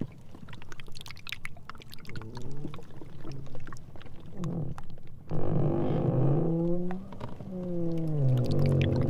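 Sea ice floes rubbing against each other: faint crackles and ticks, then about five seconds in a loud pitched squeak that bends down and up in pitch.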